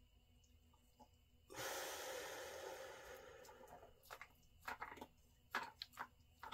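A person's long breath out, starting about one and a half seconds in and fading away over about two seconds, followed by a few small clicks near the end.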